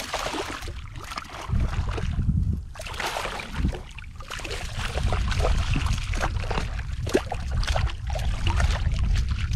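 Shallow water splashing and sloshing in many short irregular strokes as a wading angler handles a freshly caught fish, probably a redfish. A low rumble comes and goes underneath.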